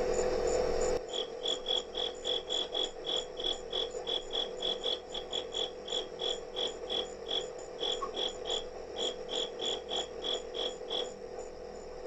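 A cricket chirping in an even rhythm, about three short high chirps a second, over a steady electrical hum. The chirping starts about a second in and stops about a second before the end.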